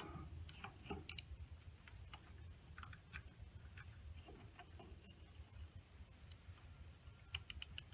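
Faint, scattered metallic clicks of a wrench being worked on a seized exhaust manifold bolt, with a quick run of ticks near the end, over a low steady hum.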